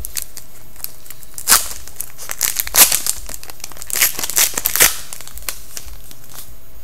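Hockey trading-card pack's shiny wrapper being torn open and crinkled by hand: several sharp bursts of crinkling in the first five seconds, over a steady low hum.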